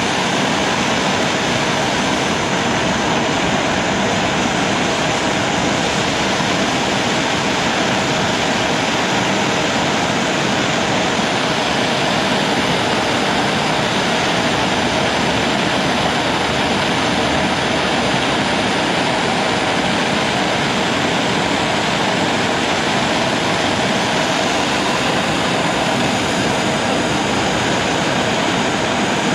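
Steady, unbroken rushing blow of a heating tool playing on freshly painted spanners to cure the paint.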